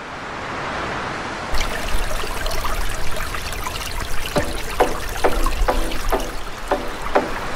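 Running water trickling and splashing, led in by a rising rush of noise. From about four seconds in, plucked musical notes play over it, two or three a second.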